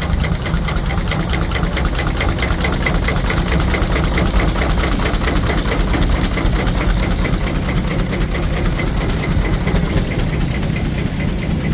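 Steam engine driving a sawmill, running with a rapid, even beat.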